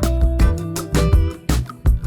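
Background music with a steady beat, drums and guitar.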